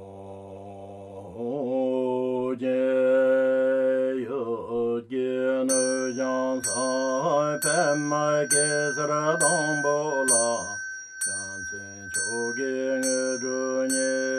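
Background music: sustained, drone-like pitched tones, joined about six seconds in by a bright bell-like chime repeating about twice a second.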